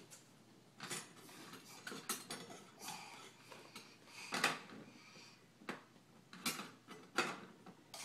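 Small metal toy pots and pans clinking and clattering as a child handles them, in irregular knocks with the loudest about four and a half seconds in.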